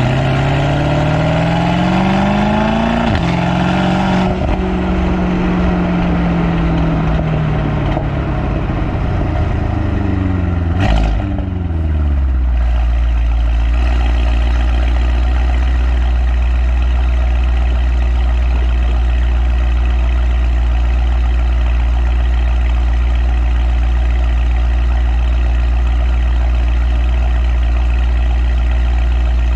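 Mercedes-AMG M177 4.0-litre twin-turbo V8, with upgraded downpipes and the exhaust flaps fully open, rising in pitch under throttle for about four seconds, then dropping back over several seconds and settling into a steady idle for the rest. A short sharp click comes just before it settles.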